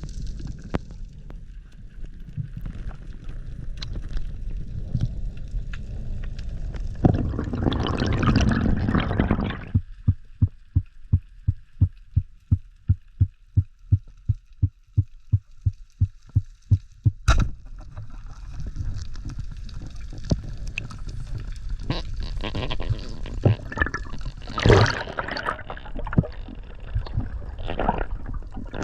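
Underwater sound picked up by a diving camera: low water noise with bursts of rushing bubbles, then a run of even low pulses about three or four a second lasting some seven seconds, and one sharp click.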